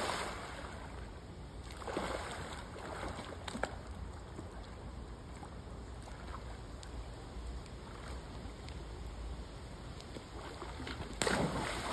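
Backyard pool water sloshing and lapping as a swimmer moves through it. Near the end comes a sudden splash as a child jumps off the diving board into the pool.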